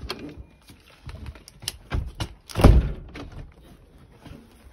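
A door or window being shut: a few light knocks and rattles, then one heavy thud about two and a half seconds in.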